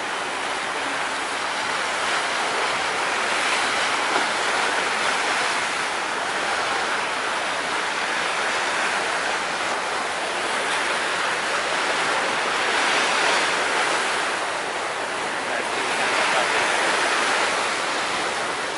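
Sea water rushing and splashing along a moving boat's hull and wake, a steady hiss that swells and eases at times.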